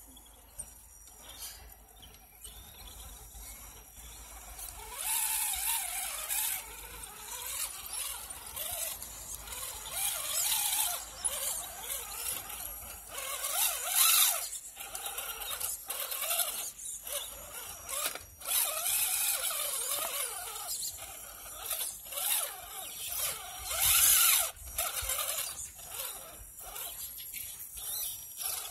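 Axial SCX10.2 RC rock crawler's electric motor and geared drivetrain whining, the pitch rising and falling with the throttle as it climbs over snowy rocks, with tyres scrabbling in the snow. It starts about five seconds in.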